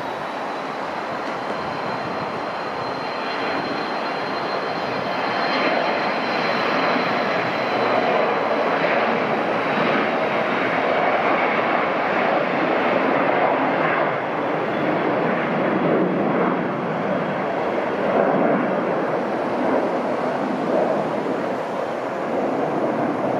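Learjet 60 business jet's twin turbofans at takeoff power: a high whine over a rushing roar that grows louder over the first few seconds as the jet speeds down the runway, then a steady roar that swells and fades a little as it lifts off and climbs away.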